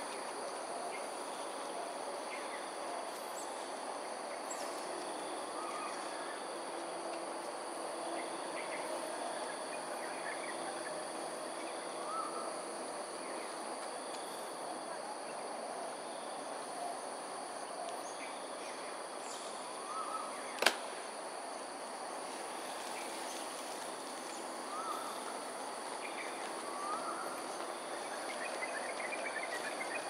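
Outdoor nature ambience: a steady high-pitched insect drone over a low background hum, with scattered short chirps. One sharp click comes about two-thirds of the way in.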